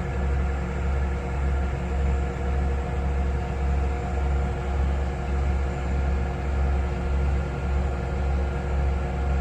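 Heavy diesel equipment running steadily, with a deep hum that swells gently about once a second.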